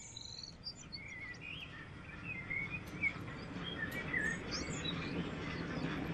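Birds chirping and singing in short, high, varied calls over a low, steady rumble that slowly grows louder from about halfway through.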